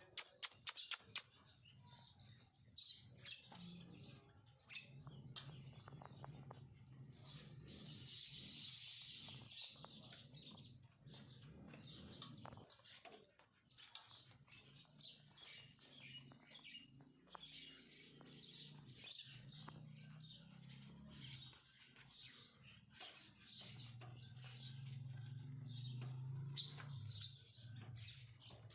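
A flock of sparrows chirping busily and without pause, many short calls overlapping, with a low steady hum underneath.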